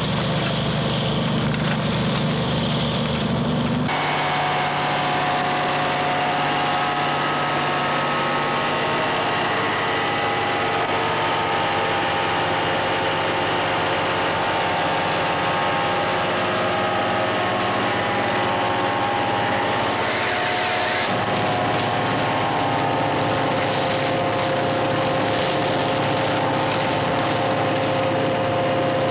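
Vacuum excavator's engine and suction blower running steadily, a droning whine with several steady pitches. The mix of pitches changes abruptly about four seconds in and again around twenty-one seconds in.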